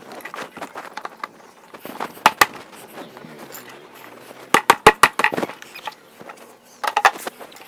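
Hard moulded plastic table parts knocking and clacking together as the legs are fitted into the upturned tabletop: a sharp knock a couple of seconds in, a quick run of hard clacks about halfway, and a few more near the end.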